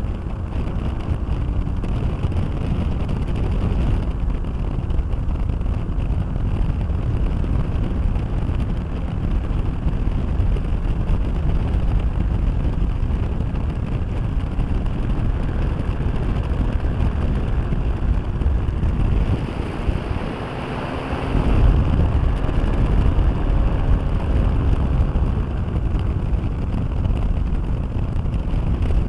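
Microlight trike in flight: its Rotax 582 two-stroke engine running under heavy wind buffeting on the microphone. About twenty seconds in, the low rumble drops briefly, then comes back a little louder.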